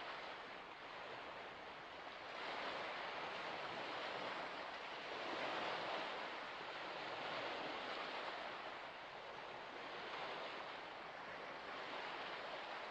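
Even rushing noise that swells and eases every two to three seconds, with no distinct events.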